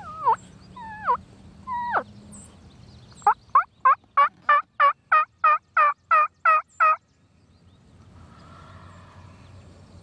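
Turkey yelps: three single falling notes, then a steady run of about a dozen yelps, about three a second, that stops abruptly about seven seconds in.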